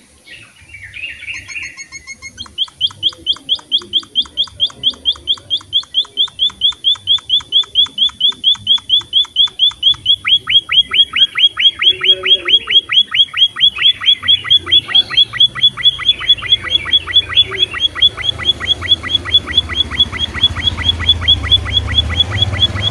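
Emprit finch (munia) chirping: after a few softer calls, a fast, even run of short chirps, about five a second, starts about two seconds in and keeps on without a break.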